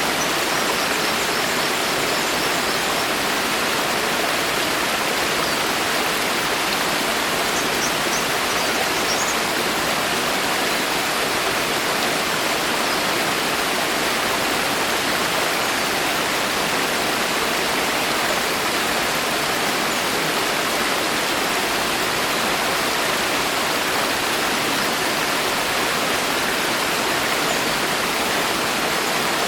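Steady, dense rain falling through a forest canopy, an even hiss with no single drops standing out.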